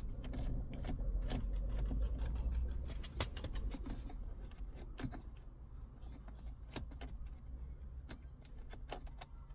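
Scattered small clicks and light rattles of a Phillips screwdriver at work on a car's plastic dashboard trim as a screw is taken out, over a low rumble that fades after about three seconds.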